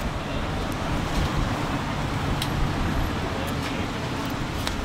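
Steady rumble of road traffic passing a street-side stall, with a few light clicks.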